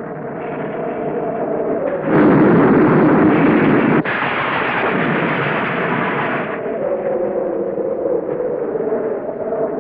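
A film soundtrack thunderclap: a loud crash that starts sharply about two seconds in, carries a sharp crack about two seconds later, and cuts off abruptly soon after. Under it runs a held, droning music score.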